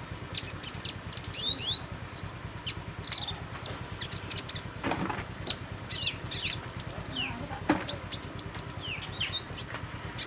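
Songbirds chirping: a busy run of short, sharp, high chirps mixed with quick sweeping whistle notes, some rising and some falling, with no pause longer than a moment.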